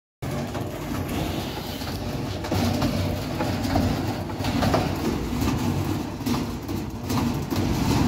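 A 15 kg top-loading washing machine spinning its drum of laundry up to speed. It makes a loud mechanical clatter with rhythmic rattling and knocking, which cuts in just after a moment of silence and grows louder about two and a half seconds in.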